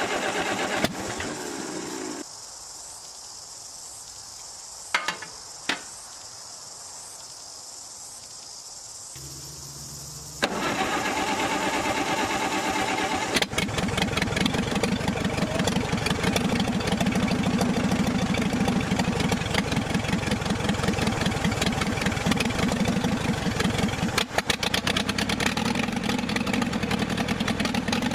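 David Brown 25 tractor's four-cylinder petrol engine being started: after a couple of clicks, it cranks over about ten seconds in, catches, and keeps running with an uneven beat, probably on only three cylinders because of a spark plug fault.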